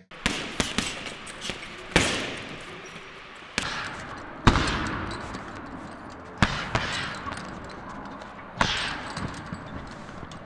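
Fists punching a heavy punch bag: a run of quick lighter hits with four heavier blows spaced about two seconds apart, each hit followed by a long echoing decay.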